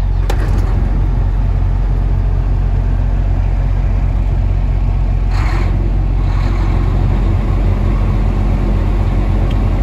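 Semi truck's diesel engine running steadily at idle just after starting, building air pressure while the low system air pressure warning is on after a governor valve replacement. A short hiss about halfway through.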